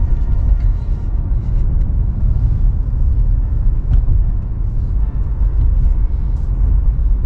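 Car interior rumble while driving: a steady, low drone of engine and road noise heard inside the cabin.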